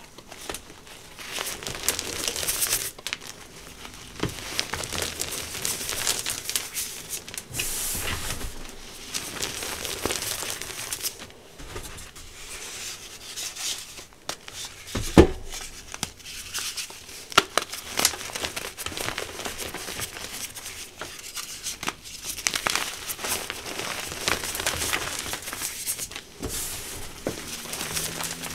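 Hands crushing and crumbling blocks of re-formed gym chalk: a dry, gritty crunching that comes in surges as each block breaks apart. There is one sharp thump about halfway through.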